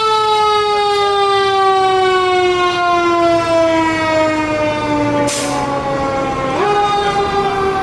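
Fire engine's siren wailing, its pitch sliding slowly down and then snapping back up sharply near the end, over the truck's low engine rumble. A short burst of hiss cuts in about five seconds in.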